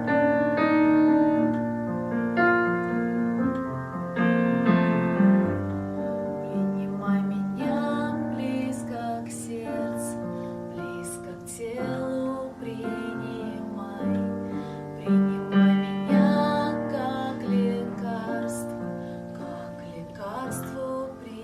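Piano playing a slow ballad accompaniment; a woman's voice joins in singing live about a third of the way in.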